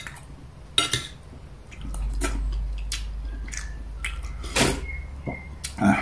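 Metal spoon clinking several times against a glass bowl and a plate as soup is spooned up. A low steady hum comes in about two seconds in.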